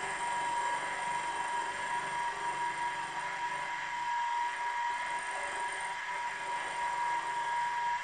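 Milling machine running with a small end mill cutting a pocket into the top of a model steam-engine cylinder block casting: a steady machine whine with a constant high tone.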